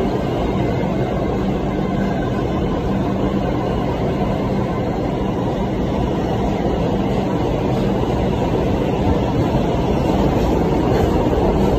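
New York City subway train on the move, heard from inside the car: a loud, steady rumble and rush of wheels on the track with a steady hum, getting a little louder near the end.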